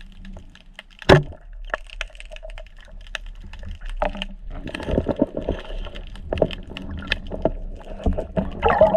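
A speargun shot underwater: one sharp crack about a second in. After it come irregular knocks and rattling as the spear and the speared fish are worked, over a steady crackle of small clicks.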